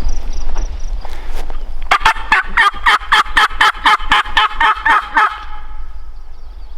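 Wild turkey gobbler gobbling: a loud, rapid rattling run of about fifteen notes lasting some three seconds, starting about two seconds in.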